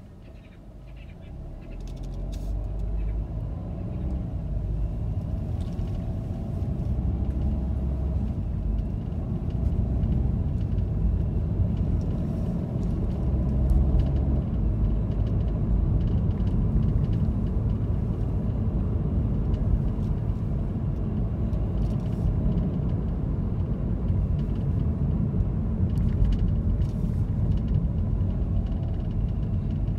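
Car's engine and road noise heard from inside the cabin: it grows over the first few seconds as the car pulls away, then settles into a steady low rumble while driving.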